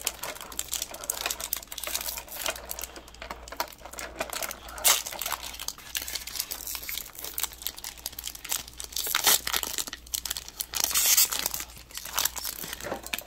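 Foil Pokémon booster pack crinkling and tearing as it is opened by hand: a dense run of sharp, papery crackles, louder in spells about five seconds in and again from about nine to eleven seconds.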